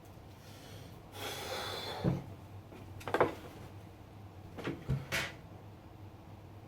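A scraping rustle, then a few knocks and clicks from hardware being handled, over a low steady hum.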